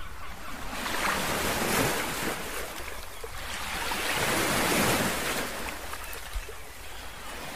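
Surf breaking and washing up on a beach, swelling and ebbing twice, with wind rumbling on the microphone.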